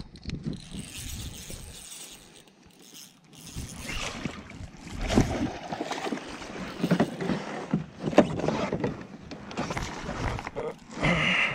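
A hooked bass splashing and thrashing at the water's surface beside a fishing kayak, with knocks and rattles from the rod, reel and kayak as it is fought. The splashing starts about four seconds in and comes in irregular bursts.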